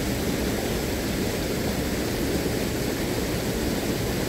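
Waterfall rushing: a steady, even noise with no breaks.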